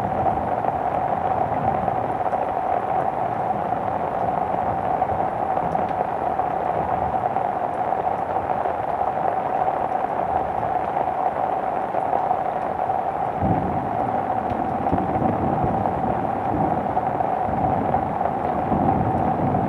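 Steady heavy rain falling, an even hiss throughout, with a low rumble of thunder rising about two-thirds of the way through and again near the end.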